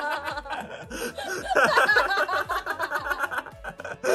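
A person laughing, with quick snickers and chuckles.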